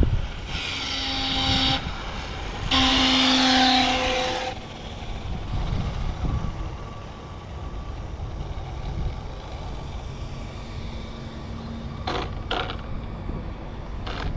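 Road traffic rumbling by, with two short loud hissing bursts that carry a low steady tone in the first few seconds, and a few sharp clicks near the end.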